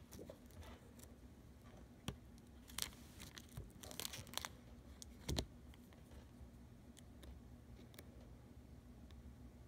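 Faint crinkling and clicking of a plastic PDLC smart film sheet being handled, with a few sharper crackles in the middle.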